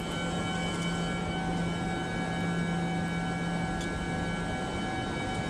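Steady drone of running chiller machinery: a strong low hum with several fainter steady tones above it, over an even rushing noise.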